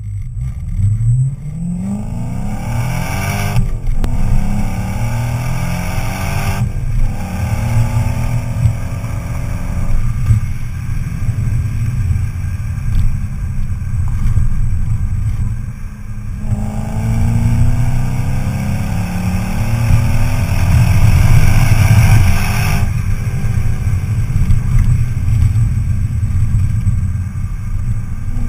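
Audi B7 S4's 4.2-litre V8 through a Stasis aftermarket exhaust, heard at the tailpipes while driving. The revs climb and break at two upshifts, hold steady for a while, then climb again in a long pull of about six seconds before dropping off.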